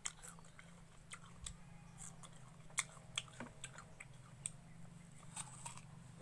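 A person biting into and chewing a piece of firm green fruit close to the microphone: a string of short, sharp crunches and mouth clicks, about ten in all, faint over a low steady hum.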